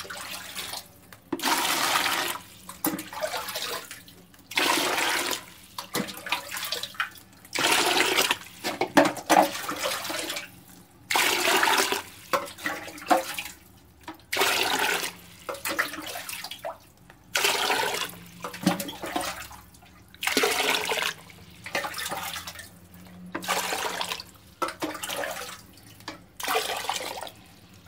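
Water pouring into a plastic bucket as it fills. The rush of water comes in surges of about a second with short quieter gaps, roughly every two seconds.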